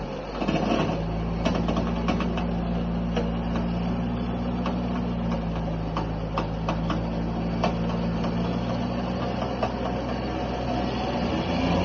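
Truck engine running steadily at low revs, with scattered clicks and knocks over it.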